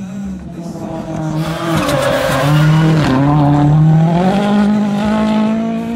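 A turbocharged rallycross race car's engine, growing louder as the car comes past under hard acceleration. About three seconds in the pitch dips briefly, then climbs steadily until the sound cuts off suddenly at the end.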